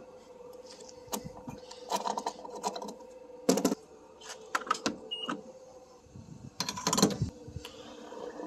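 Refuelling at a gas pump: a steady hum with a string of clicks and clunks of handling the pump, and a short high beep about five seconds in.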